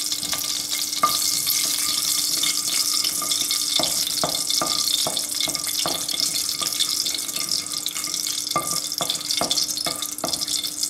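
Mustard seeds frying in hot vegetable oil in a non-stick pan: a steady sizzle with scattered sharp clicks and pops, stirred with a wooden spatula.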